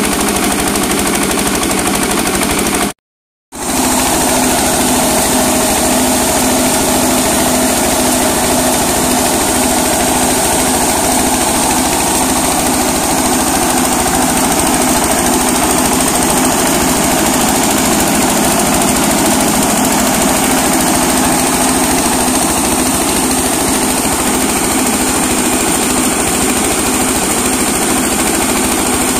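Small stationary diesel engine running steadily under load, driving a dry coffee huller that is hulling dried coffee cherries. The sound cuts out for about half a second around three seconds in, then resumes.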